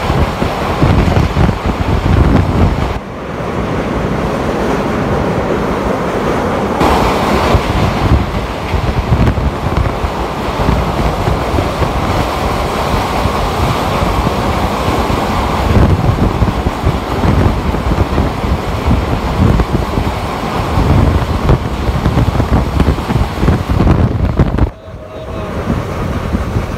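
Passenger train running through a tunnel, heard from inside a coach: a loud, continuous rumble of wheels on rail with wind buffeting the microphone. The noise dips sharply for a moment about 3 s in and again near the end.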